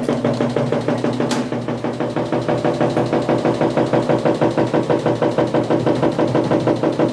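Spin-dry basket of an Edison single-tub mini washing machine (E0001-A40) spinning a load of clothes. The motor hums with a rapid, regular throb of several pulses a second.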